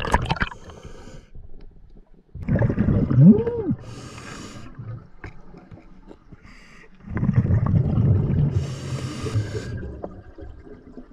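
A diver breathing hard through a snorkel, with water gurgling in the tube. It comes in two loud spells, about two seconds in and again about seven seconds in, each ending in a hissing breath.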